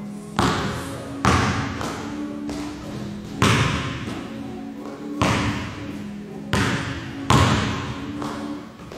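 A basketball thudding in a gym during a shooting drill: six sharp hits at uneven intervals in about nine seconds, each ringing out in the large hall's echo.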